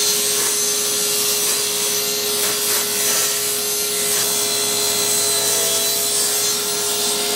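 Power saw running steadily, cutting oak flooring boards.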